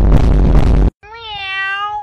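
Loud electronic dance music with a steady beat cuts off abruptly just under a second in. After a short pause, a domestic cat gives one long meow that rises slightly in pitch and then holds steady.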